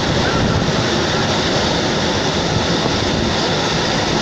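Steady running noise of a moving train, heard from inside the carriage.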